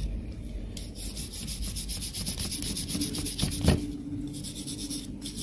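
Bristle brush scrubbed rapidly back and forth over a dot matrix printer's stepper motor and its gear, in fast, even scratchy strokes of about ten a second. The scrubbing stops with a knock about three and a half seconds in, and a few more strokes come near the end.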